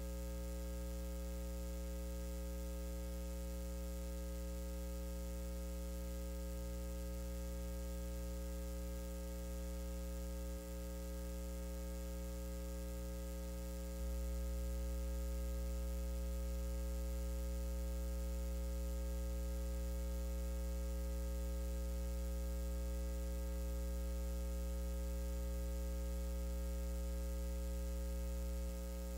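Steady electrical mains hum with a stack of its overtones, a little louder from about halfway through.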